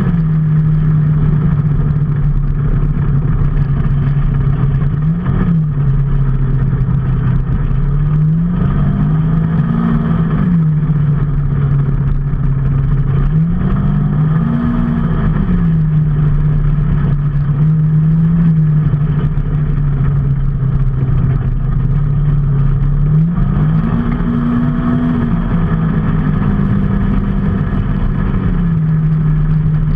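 A vehicle engine running steadily under way with a continuous road noise. Its pitch holds level but rises and falls back several times, at about 5 s, 10 s, 15 s and 24 s, as the throttle changes.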